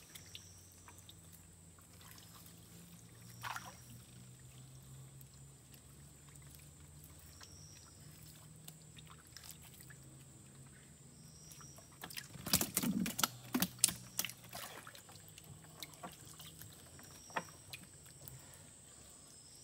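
A gillnet being pulled up by hand over the side of a small wooden boat: water trickling and dripping off the mesh, with a burst of splashing and knocks about twelve seconds in. A steady low hum and a thin high whine run underneath.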